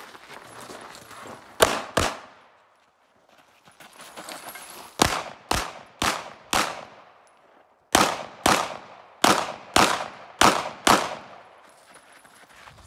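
Smith & Wesson M&P 2.0 pistol fired in quick succession, twelve shots in all. Two shots come, then about three seconds of quiet, then four evenly spaced shots about half a second apart, then three quick pairs.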